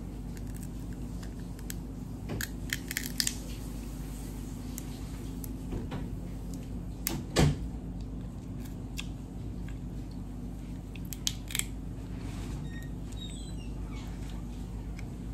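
Cooked crab shell being cracked and picked apart by hand, with scattered sharp cracks and crunches and some chewing, over a steady low hum. The loudest crack comes about halfway through.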